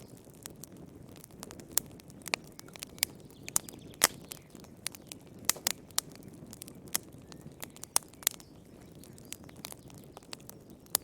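Fireplace fire crackling: irregular sharp pops and snaps over a low steady rumble of the flames, the loudest pop about four seconds in.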